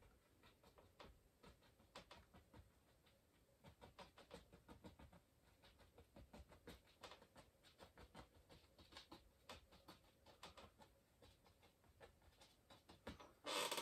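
Near silence with faint, irregular soft taps and strokes of an oil-paint brush against the canvas.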